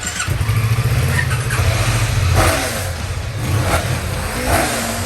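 Motorcycle engine running under throttle, coming in loud about a third of a second in and rising and falling in level.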